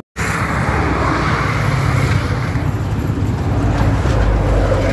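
Steady road traffic noise with the low rumble of vehicle engines, after a split-second of silence at the very start.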